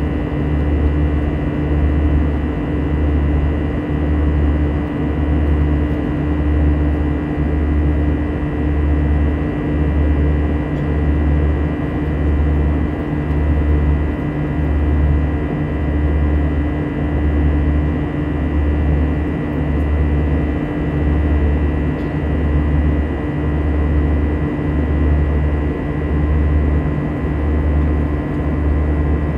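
Airbus A320 jet engines heard in the cabin during the climb: a steady drone with a fixed whine, over a low throb that swells and fades about once a second.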